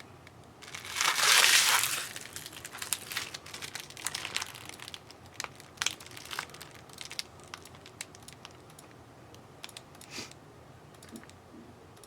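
Trading-card packaging crinkling loudly as it is torn open about a second in, followed by lighter rustling and clicking as packs and cards are handled.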